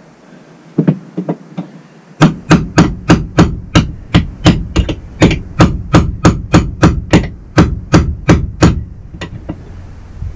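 Hammer blows on new floor material: a few light taps, then a fast, even run of about two dozen sharp strikes, roughly four a second, stopping about 9 seconds in.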